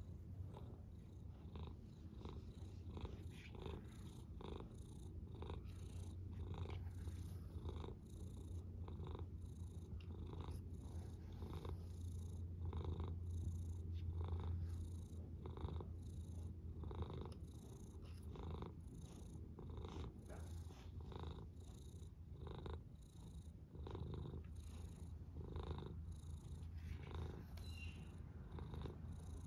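Domestic cat purring steadily close to the microphone, the purr swelling and easing in an even rhythm with each breath.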